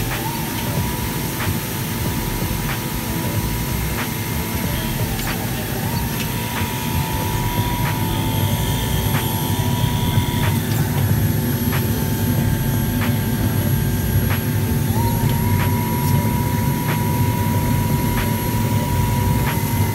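FK Group UNIVERSAL 8 automatic fabric cutting machine running: a constant rushing machine noise with a whine that steps between two pitches every few seconds, and faint ticks.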